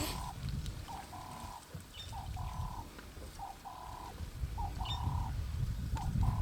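A bird repeating a two-note call about every second and a quarter, a short note followed by a longer held one, over a low rumble.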